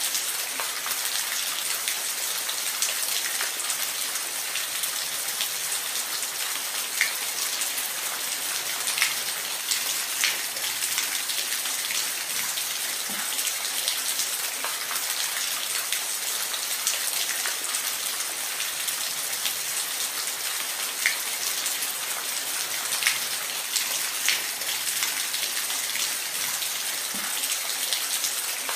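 Steady rain, an even hiss with scattered louder drops ticking on a surface.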